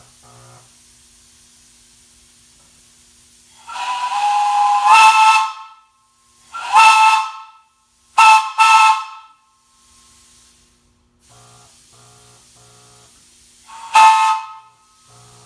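Multi-tone steam whistle blown on compressed air through a hand valve, sounding a chord in five blasts: a long one of about two seconds, a shorter one, two quick toots, and one more near the end. Each blast slides up in pitch as the valve opens, with a hiss of air over the tones.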